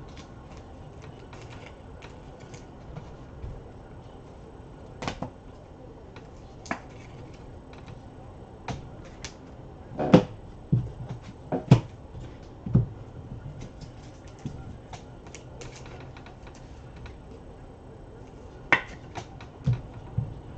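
Trading cards and packs being handled on a tabletop: scattered taps, clicks and light knocks, the loudest a pair of sharp knocks about ten and twelve seconds in, over a faint steady hum.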